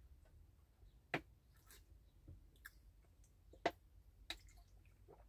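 Quiet room with a few sharp clicks, one about a second in, the loudest a little past halfway and a smaller one just after it.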